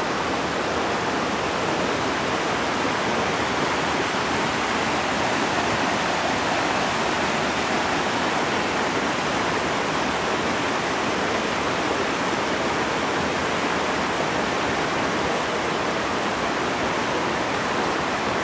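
Water of a stream rushing steadily.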